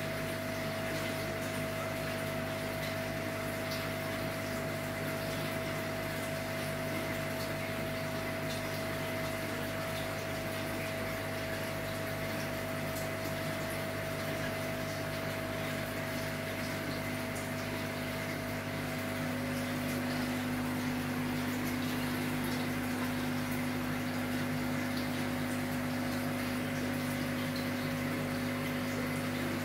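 Aquarium aeration running: the steady hum of an electric air pump with bubbling from an air stone and air-driven sponge filters. About two-thirds of the way through, one tone in the hum drops slightly and the sound gets a little louder.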